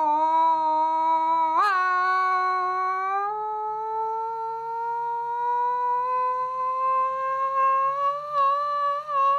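A man's voice holding one long sung note without a breath. The pitch steps up about a second and a half in, then slides slowly higher, with a slight waver near the end.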